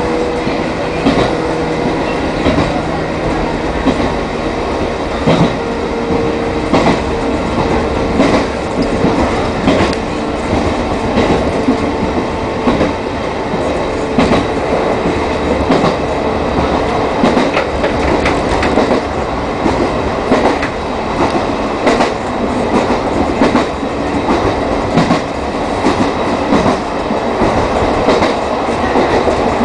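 Chichibu Railway 1000 series electric train (a former JNR 101 series) running along the line, its wheels clicking irregularly over rail joints under a steady rumble. A steady motor tone fades out about halfway through.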